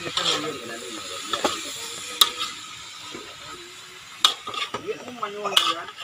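Metal spatula scraping and clinking against a large metal wok as cassava leaves and pork are stir-fried. About five sharp clinks stand out over a light sizzle.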